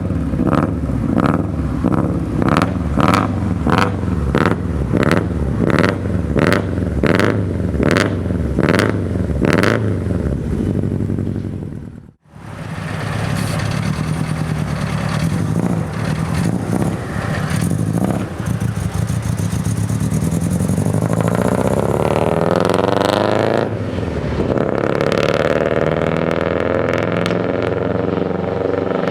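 Subaru Impreza STI's turbocharged flat-four heard through its exhaust. For about ten seconds it pulses evenly, nearly twice a second. After a cut it runs on steadily, with a revving rise and fall in pitch a little past the middle.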